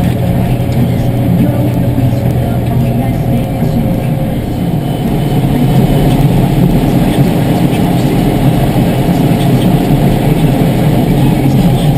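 Massey Ferguson tractor's diesel engine running steadily at road speed, heard close up from on board, getting slightly louder about five seconds in.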